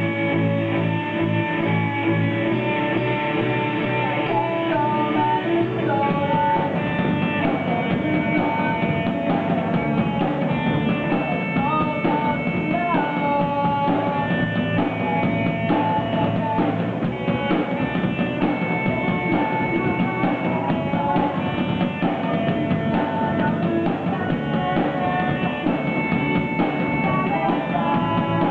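Live rock band playing: electric guitar, bass guitar and drum kit, with a singer's voice over them. The sound fills out in the low end about six seconds in.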